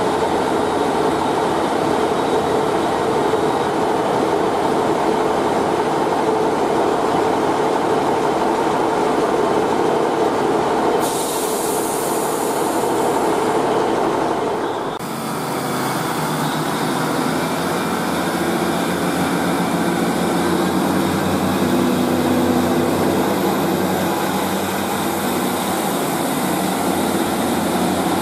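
Northern Class 150 Sprinter diesel multiple units' underfloor engines running, a steady diesel drone. The sound changes abruptly twice, about 11 and 15 seconds in, with a clearer engine throb after the second change.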